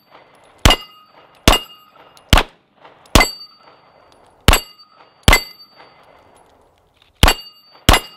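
Canik TP9SFL 9mm pistol fired eight times at a steady pace of about one shot a second, with a pause of about two seconds before the last two. Most shots are followed by a short metallic ring from steel plate targets being hit.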